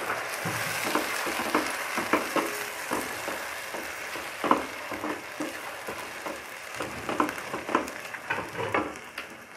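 Onion-tomato masala sizzling in oil in a nonstick kadai while a spatula stirs it, scraping and knocking against the pan at irregular moments. The masala is being fried until the oil separates.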